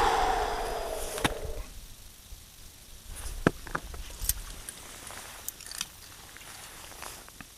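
Water splashing and swirling beside a small boat, with a falling tone that dies away within the first two seconds. After it come a few scattered sharp clicks and knocks.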